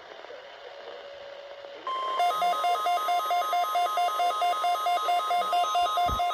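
NOAA Weather Radio warning alarm tone, a steady 1050 Hz tone, comes on from a weather radio about two seconds in, joined at once by a pulsing alarm beep at about four beats a second; before it there is only faint radio static. A short low thump sounds near the end.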